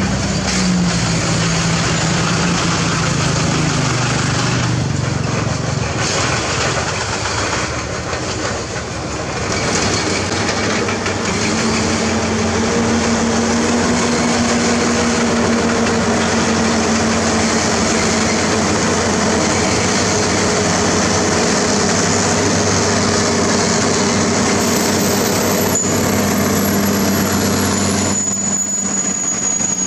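Diesel engine of a UD self-loader truck labouring uphill under the weight of an excavator. Its pitch sags over the first few seconds, then runs higher and steady as the truck comes closer. A thin high whine comes in near the end.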